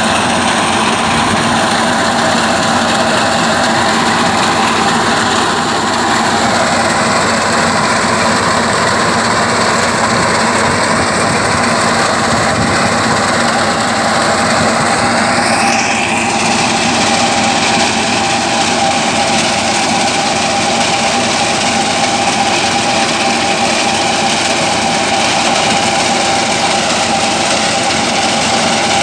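Small farm tractor engine running steadily while it drives a front-mounted vertical conveyor reaper.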